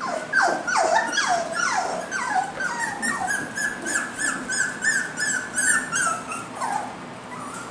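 Cockapoo puppies whining: a string of high whimpers that slide down in pitch, then a quick run of short, even yips, three or four a second, that stops about six seconds in.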